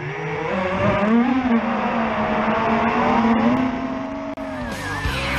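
FPV freestyle quadcopter's brushless motors (TBS Silk) whining as the throttle changes. The pitch rises about a second in, wavers, and drops near the end, over a rush of noise, as heard from the onboard camera.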